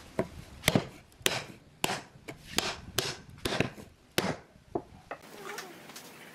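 Sharp wood-on-wood knocks, about two a second, as a wooden strip is tapped and set against a softwood board; they stop about five seconds in.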